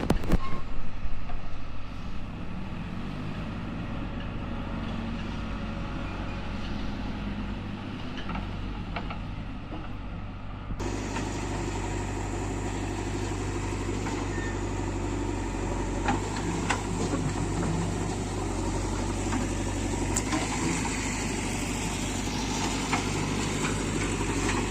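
JCB 3DX backhoe loader's diesel engine running steadily, with a few sharp knocks at the start; about eleven seconds in, the sound jumps abruptly to a fuller, louder engine noise.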